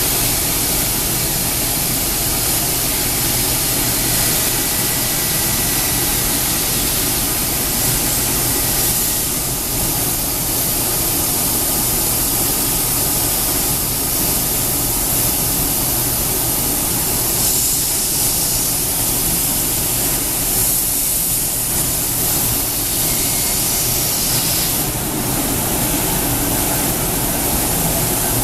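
Komo VR 1005TT CNC router machinery running steadily: a constant loud hiss with a low hum underneath, no rhythm and no impacts.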